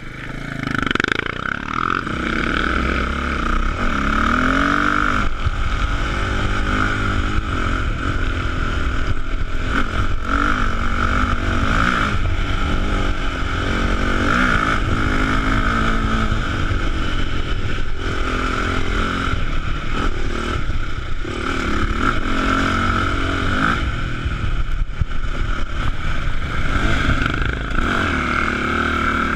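Enduro dirt bike engine revving up and down again and again under throttle while riding a dirt trail, heard close from a camera on the bike.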